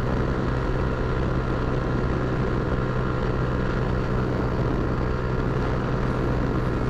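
Honda Titan 150's single-cylinder engine running at a steady speed through a free-flowing Roncar Aluminium Boca 8 sport exhaust, a loud, even racket with no change in pitch.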